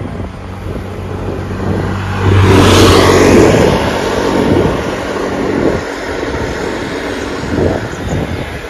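A motor scooter overtaking close alongside, its engine hum building to a loud rush about two and a half seconds in and then fading as it pulls ahead. Wind rushes on the microphone underneath.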